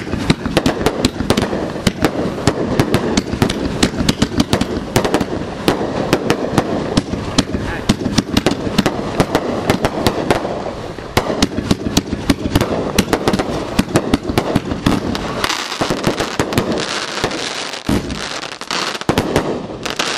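Multi-shot consumer aerial firework ('Bucket List') firing a rapid string of shots and bursts, several bangs a second. In the last few seconds the low booms thin out and a higher crackling takes over.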